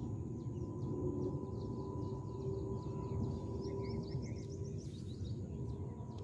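Open-air ambience: a steady low background rumble with many small birds chirping over it, the chirping busiest about four to five seconds in.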